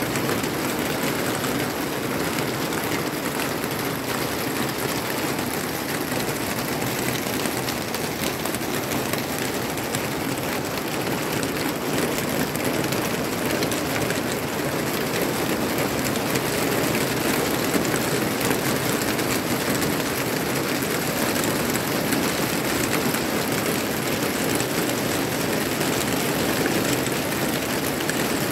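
Steady rain falling on a garden's leaves and soil: an even hiss with a fine patter of drops.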